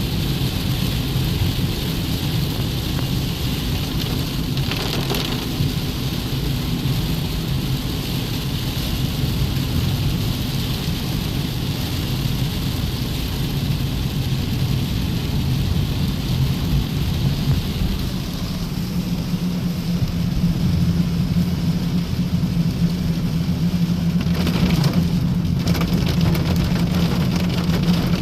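Steady rain falling, an even hiss, with a continuous low rumble underneath.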